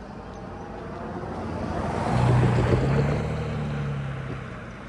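A motor vehicle passing close by: its engine hum and rolling noise swell to a peak a little past halfway, then fade.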